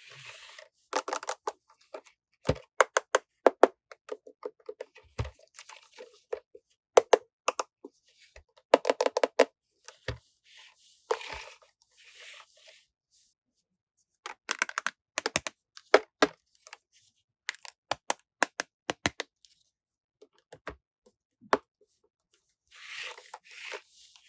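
Toy packaging being handled and opened: short spells of plastic crinkling and tearing, broken up by quick runs of sharp clicks, with silent gaps between.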